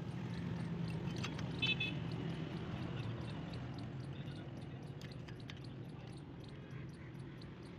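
A few light metallic clicks and taps of a T-handle hex key on the cylinder bolts of a chainsaw's bare cylinder, one with a brief ringing tone about a second and a half in, over a steady low hum and a faint fast ticking.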